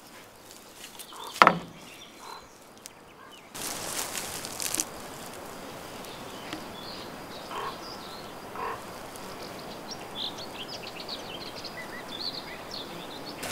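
Rural outdoor ambience: a steady background hiss with faint high chirping calls of small animals, mostly near the end. A single sharp knock comes about a second and a half in, and the background grows louder about three and a half seconds in.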